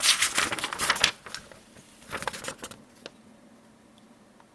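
Sencut Honoris flipper knife's blade slicing through paper in a sharpness test, heard as crisp rustling: one burst of about a second at the start and a shorter one about two seconds in.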